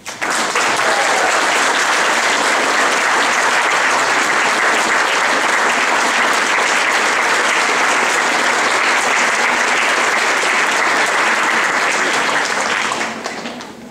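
Audience applause that breaks out suddenly, holds steady, and dies away near the end.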